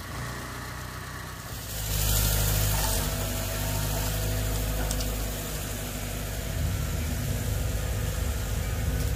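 Engine of heavy equipment running steadily at a low idle-like hum; it gets louder about two seconds in and holds there.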